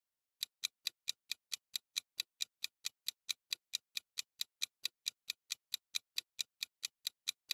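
Countdown-timer clock-ticking sound effect: quick, even ticks, about four to five a second, starting about half a second in.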